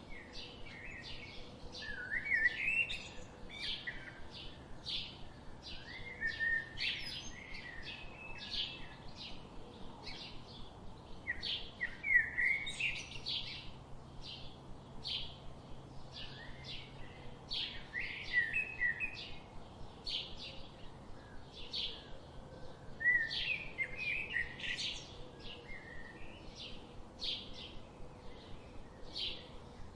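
Birds chirping: quick, high, repeated chirps about twice a second, with a brief warbling phrase breaking in every few seconds.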